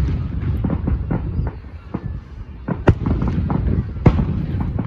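Fireworks display: a continuous low rumble of bursts and crackling, with two sharp bangs standing out about three and four seconds in.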